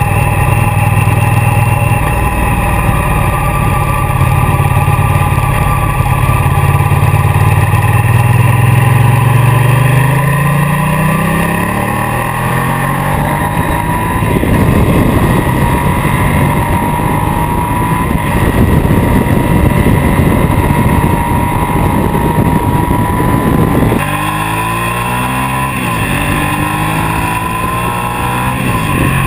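Ducati motorcycle's V-twin engine heard from a camera mounted on the bike while riding: the engine note climbs steadily as it accelerates, then wind rushes over the microphone at speed through the middle. Near the end the engine pitch drops and rises again several times as the bike slows and changes gear.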